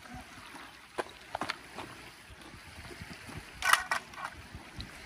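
Scattered knocks and scrapes of an angler moving over shoreline rocks with a landing net while playing a fish, with a louder short burst about three and a half seconds in, over a steady hiss of wind and water.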